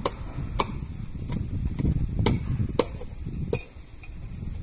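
Kitchen utensils knocking sharply about five times at irregular intervals during food preparation, over a low rumbling background.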